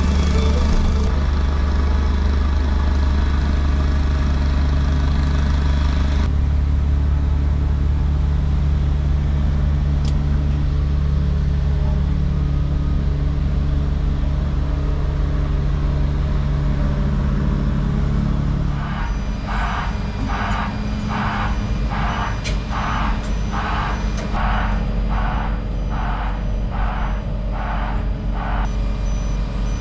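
Heavy machine's diesel engine running steadily. About two-thirds of the way in, a reversing alarm starts beeping, about one and a half beeps a second, and stops just before the end.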